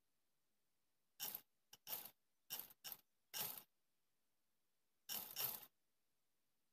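Black domestic sewing machine stitching through an elastic trouser waistband in short stop-start runs: six quick bursts in the first four seconds, then one longer run about five seconds in.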